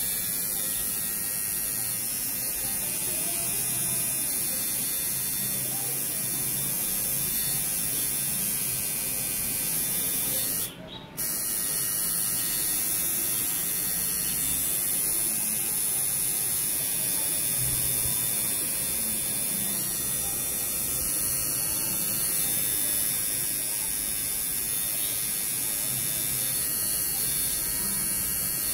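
Coil tattoo machine buzzing steadily as it works the needle into the skin, with a short break about eleven seconds in.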